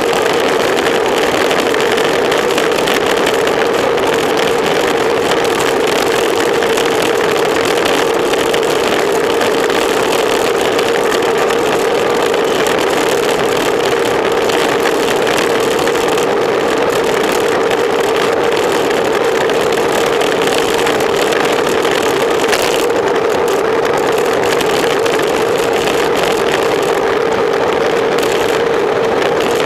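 Steady wind rush and tyre noise on a camera mounted to a racing bicycle at speed, with a constant mid-pitched hum under it.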